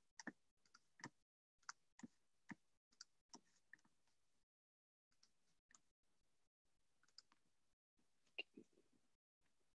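Faint, scattered clicks at a computer, about a dozen: a quick run in the first few seconds, a pause, then a few more, the loudest near the end.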